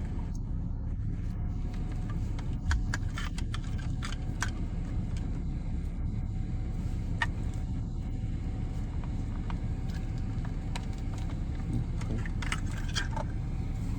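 Scattered light clicks and small rattles of wiring-harness plugs and cables being handled, over a steady low rumble.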